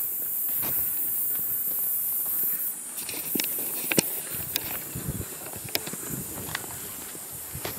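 Footsteps on a stony dirt track, sharp scuffs and clicks of gravel about every half second from about three seconds in, over a steady high-pitched hiss.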